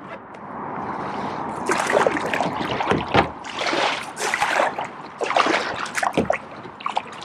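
Double-bladed kayak paddle dipping and pulling through lake water, with irregular splashes and dripping from the blades that start about two seconds in.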